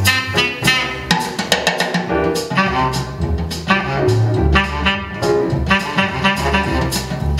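Instrumental jazz-style music with saxophone and brass over bass and drum kit, played back through a JBL SA600 stereo amplifier.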